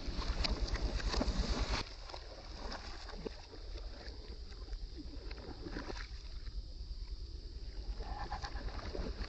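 Monkeys splashing and thrashing in a muddy pond, the water churning and slapping. It is loudest at the start and drops off abruptly about two seconds in, leaving quieter, scattered splashes and sloshing.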